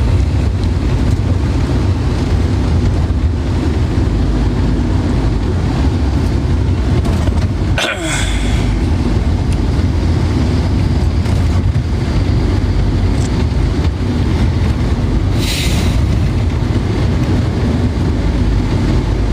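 Steady low road-and-engine rumble inside a moving car's cabin. A brief sliding sound comes about eight seconds in, and a short hiss near the three-quarter mark.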